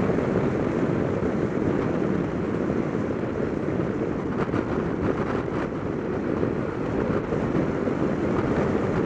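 Steady wind rush on the microphone of a Piaggio MP3 500 three-wheeled scooter riding at road speed, mixed with its engine and tyre noise.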